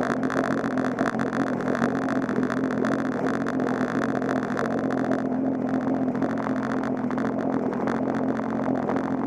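Turbocharged Sea-Doo personal watercraft engine running at a steady speed. Its brighter upper noise drops away about five seconds in while the low engine note carries on.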